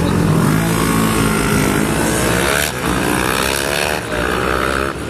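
A pack of 400cc and mini-twin racing motorcycles revving hard and pulling away from the grid, several engines climbing in pitch together. The sound eases off slightly near the end as they move away.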